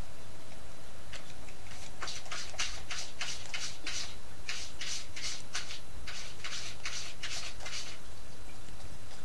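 Kitten sucking on a finger: a run of rhythmic wet sucking clicks, about three a second, starting about a second in and stopping near the end.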